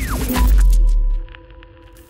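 Logo-intro music sting: a falling sweep runs into a loud, deep bass boom about half a second in. The boom drops away after about a second, leaving a faint held tone.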